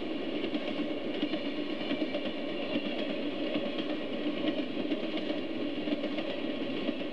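HO scale model freight train running past close by, a steady rumble of its small wheels rolling on the track with faint clicking.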